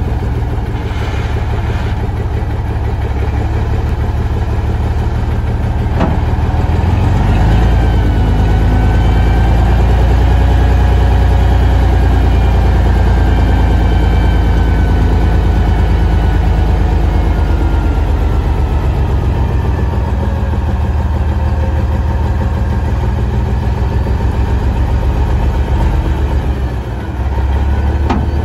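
Ford L9000 dump truck's diesel engine running while the hydraulic hoist raises the dump bed. A click comes about six seconds in, then the engine note deepens and grows a little louder under the hoist load, with a faint whine over it; a brief drop comes near the end.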